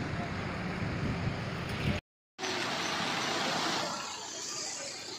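Street traffic noise, a steady rush from vehicles driving past on the road. It cuts out to silence for a fraction of a second about two seconds in, comes back louder, and eases off about four seconds in.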